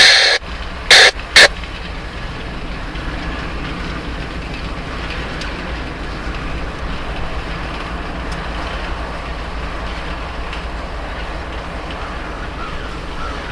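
Freight train cars rolling past with a steady low rumble, boxcars and then autoracks going by as the locomotives draw away. About a second in there are two brief, very loud bursts of noise.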